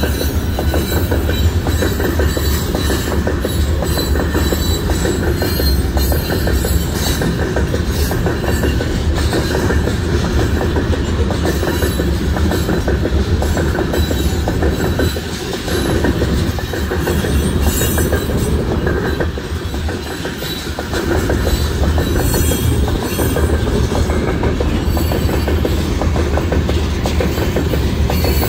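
Covered hopper cars of a frac sand freight train rolling past close by: a steady, loud rumble and clatter of steel wheels on the rails, with rapid clicking running through it.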